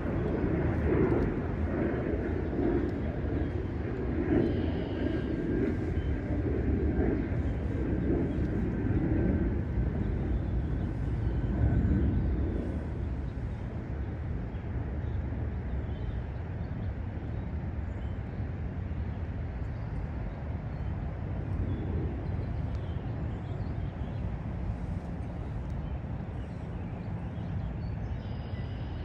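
Low, steady rumble of distant engine traffic, louder for the first twelve seconds or so and then easing, with a faint steady high whine over it between about four and thirteen seconds in.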